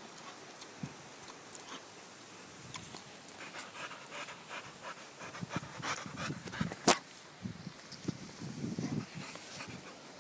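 American Staffordshire terrier panting close to the microphone, breathing fast in short rhythmic bursts. Sharp clicks run through it, the loudest about seven seconds in, as the dog noses and bumps against the phone.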